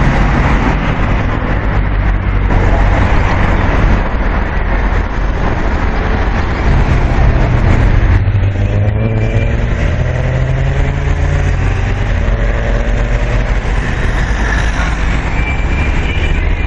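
Cars driving past on the road: a steady rush of engine and tyre noise, with one vehicle's engine tones sliding in pitch as it goes by about halfway through.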